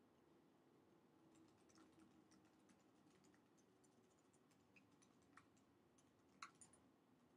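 Quiet typing on a computer keyboard: a run of faint key clicks, with a few sharper keystrokes about five and six and a half seconds in, over a faint steady hum.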